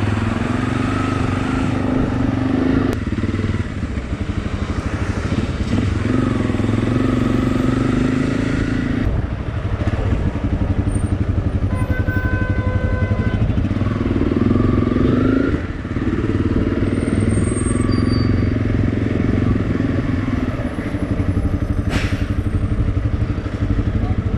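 Honda CRF300L's single-cylinder engine running as the bike is ridden, its note climbing and dropping back about three times.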